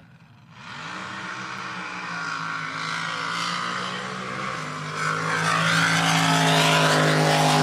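Supercharged drag boat engine at full throttle on a pass down the course, its note holding steady and growing louder. The pitch steps down once about halfway through, and the engine is loudest near the end as the boat runs past.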